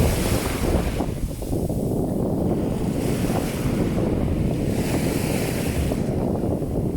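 Sea waves washing onto a beach, with wind buffeting the microphone in a steady low rumble. The hiss of the surf swells twice, at the start and again about five seconds in.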